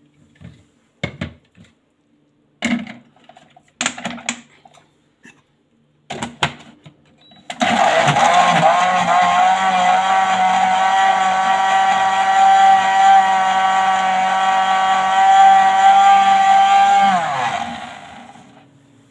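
A few knocks and clatters as the blender jar is handled and set on its base. Then the countertop blender motor starts about seven seconds in and runs loud and steady, blending parsley with juice, for about ten seconds. Near the end it is switched off and its pitch falls as the motor winds down.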